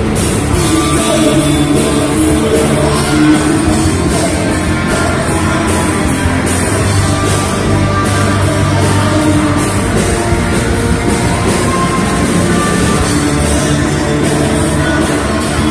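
A live rock band playing loud, heavy music with drums and guitar and singing over them, keeping a fast, steady beat.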